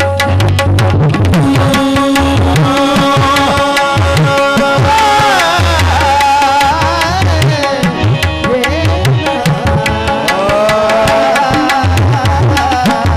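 Qawwali music: several harmoniums holding a melody over a fast, steady hand-drum rhythm. A singer's voice bends and slides through the melody in the middle and again near the end.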